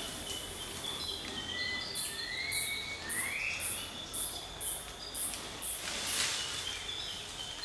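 Tropical forest insects and birds: a high insect pulsing about twice a second from about two seconds in until about six seconds in, over steady high insect trills, with two short rising whistled calls around the middle.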